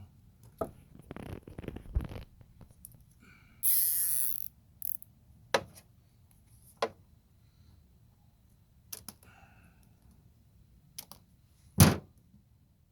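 Hand work on small plastic parts and wiring: scattered clicks and taps, a cluster of them early, a hissy rasp lasting about a second near the middle, and a single sharp knock near the end, the loudest sound.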